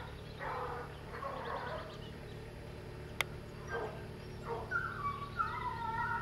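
A pack of foxhounds baying in a chorus of overlapping cries, coming in bouts and turning into longer held cries near the end. A single sharp click about three seconds in.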